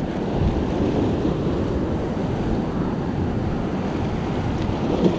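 Sea surf surging and washing against a rock ledge, a steady rushing noise, with wind noise on the microphone.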